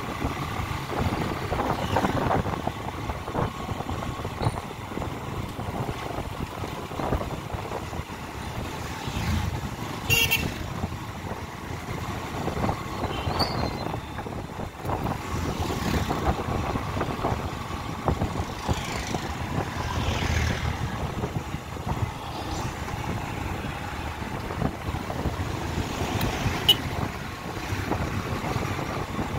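Road traffic heard while riding a motorcycle: steady engine and road noise, other vehicles passing, and a horn tooting now and then.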